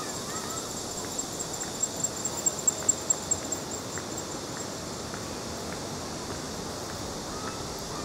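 Outdoor mangrove ambience: a steady hiss under a high, rapidly pulsing animal call through about the first half. A quick run of sharp ticks about two to three seconds in is the loudest sound.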